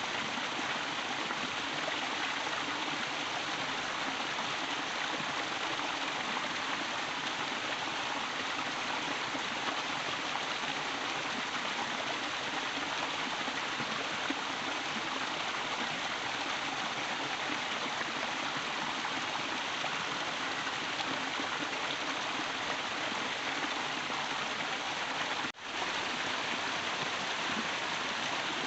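Steady rain falling, an even hiss of water with no let-up. It cuts out for an instant near the end.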